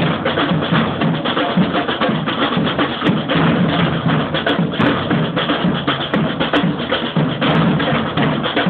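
Samba drum band playing a samba-reggae groove: large surdo bass drums and higher drums struck in a dense, steady rhythm.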